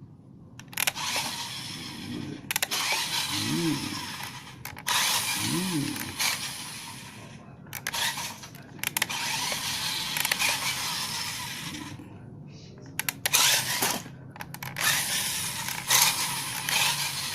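Small electric RC car's motor and gears whirring in repeated bursts of one to two seconds as it is driven, stopping and starting, with a few sharp clicks near the end.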